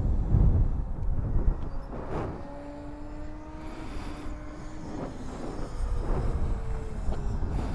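Radio-controlled stunt plane's motor whining overhead, its pitch stepping up and sliding down as it manoeuvres. Wind rumbles on the microphone underneath.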